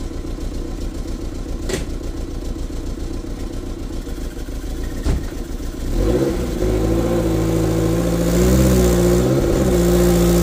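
1994 Toyota MR2's 2.2-litre four-cylinder engine running roughly, with a slight misfire. About six seconds in it gets louder and settles into a steadier, slightly wavering note.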